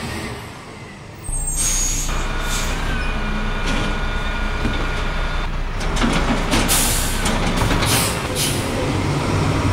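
Garbage truck sound effect: a diesel engine starts running about a second in with a steady low rumble and a steady whine over it, then several short air-brake hisses near the end.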